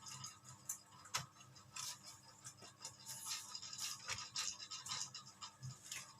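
Irregular scratching and rustling with scattered sharp clicks, as of something being handled and rubbed.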